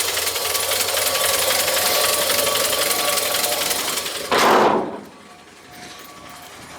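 1957 Chevrolet 3100's original stovebolt inline-six engine idling steadily. About four and a half seconds in, a loud brief rush of noise, after which the sound is much quieter.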